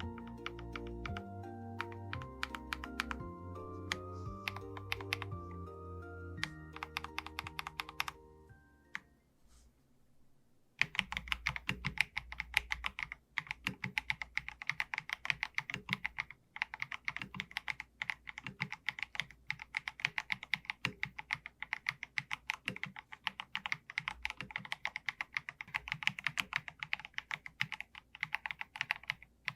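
Background music with a few key clicks fades out over the first nine seconds or so. After a short lull, an Akko MG108B mechanical keyboard with Akko V3 Piano Pro switches is typed on rapidly and continuously, a dense run of crisp keystrokes.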